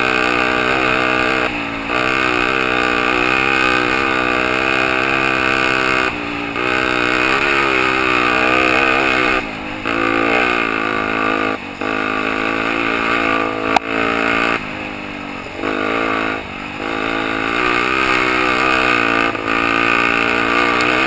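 Honda XL 125 R's single-cylinder four-stroke engine running under way on a dirt track, heard from the onboard camera. Its pitch rises and falls with the throttle, the sound drops briefly several times, and there is a single sharp knock about 14 seconds in.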